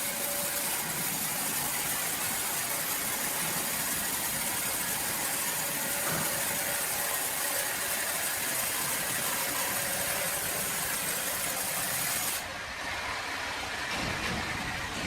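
Sawmill machinery running steadily with a strong hiss. About twelve seconds in, the hiss drops away and the sound turns slightly quieter and duller.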